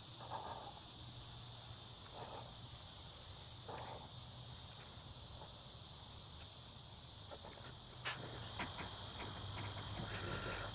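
Steady high buzz of night insects chirring, with a few faint soft rustles early on and scattered light ticks near the end.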